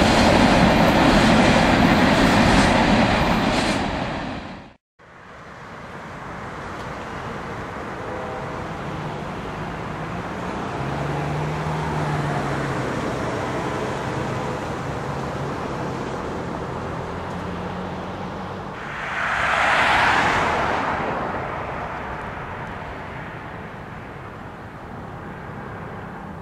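Freight cars rolling past with a loud rumble and wheel clacking, cut off suddenly about five seconds in. Then a steady, quieter background with the faint low hum of distant approaching diesel locomotives and a brief louder swell of noise about twenty seconds in.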